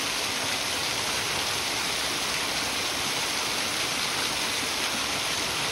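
Small waterfall: a thin stream of water spilling over a boulder face and splashing onto the rocks below, a steady hiss of falling water.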